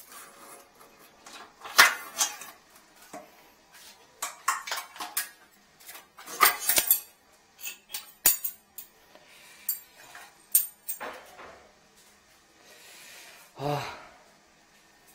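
A metal hook rod clinks and scrapes against a porcelain toilet bowl while it fishes for a metal coffee spoon lodged in the toilet: irregular sharp clinks and knocks. A brief pitched sound comes near the end.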